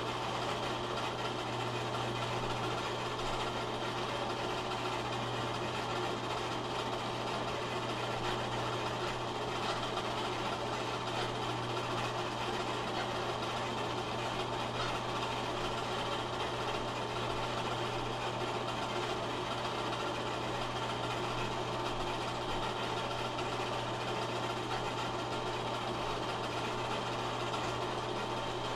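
8mm film projector running: a steady whir and hum with no change throughout.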